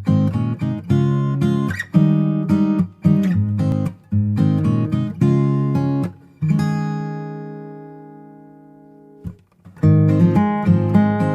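Background music of strummed acoustic guitar chords. About halfway through, one chord is left to ring out and fade for nearly three seconds before the strumming starts again.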